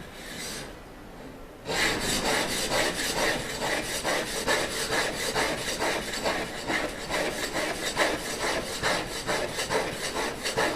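A steel chisel being honed on an oil stone: rapid, even back-and-forth rubbing strokes, about three a second, starting about two seconds in. The honing is raising a burr on the edge.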